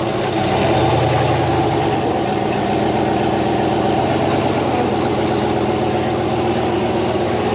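Rock-crawler buggy's engine running steadily at low speed as the buggy crawls up a rock ledge.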